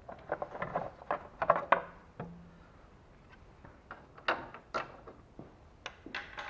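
Plastic upper timing-belt cover of a Lada Priora engine being worked loose and lifted off by hand: a quick run of knocks and plastic clacks in the first two seconds, then a few scattered clicks.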